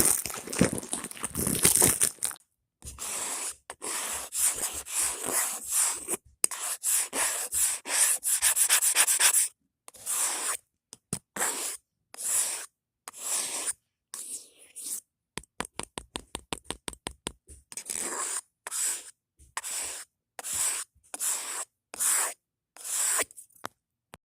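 A series of short rubbing strokes with dead-silent gaps between them, quickening to about five strokes a second for a couple of seconds in the middle.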